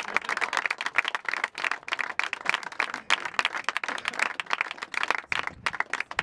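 Small audience applauding, many hands clapping at once and thinning a little near the end.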